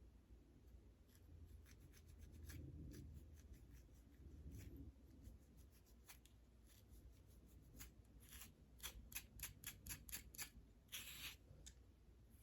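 Faint, close-up scratching of a dandruff-flaked scalp: short scratching strokes at an uneven pace, with a quick run of strokes about two-thirds of the way through and one longer scrape near the end.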